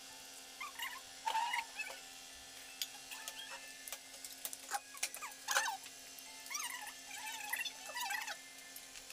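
Spoons and forks clinking against plates and a steel pot while food is served, with a few short, high-pitched squeaks mixed in.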